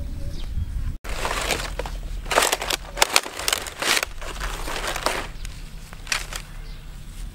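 Dry palm fronds crackling and rustling in a run of irregular bursts as a large stingray is handled and turned over on them.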